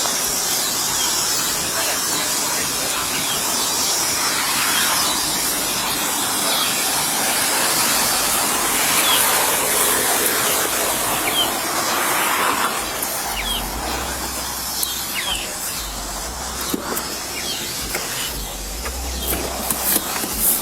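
Steady hissing background noise with a few faint short clicks, and low rumbles in the second half.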